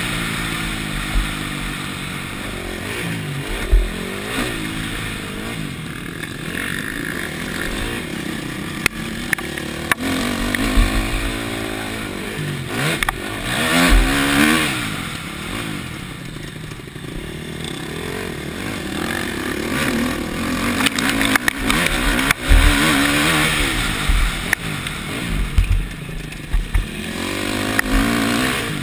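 KTM four-stroke motocross bike engine, heard from the rider's helmet camera, revving up and down as it is ridden hard round a dirt track. Scattered thumps mark bumps and landings.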